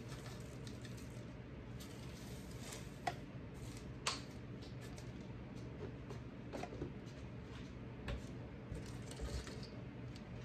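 Small pieces of HDPE plastic dropped by hand into a mold: scattered light clicks and taps, with two sharper clicks about three and four seconds in, over a steady low hum.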